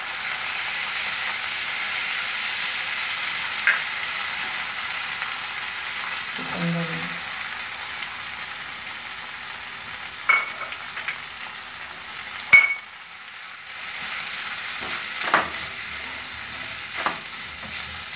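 Butter-based sauce sizzling in a frying pan as a silicone spatula stirs it, with a few sharp taps of the spatula against the pan. Shredded chicken goes in partway and is stirred through, and the sizzle dips for a moment after a loud tap past the middle.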